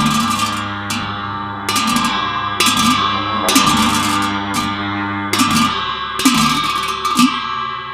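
Tibetan ritual music: cymbals crashed about once a second, each crash ringing on, over a steady low tone.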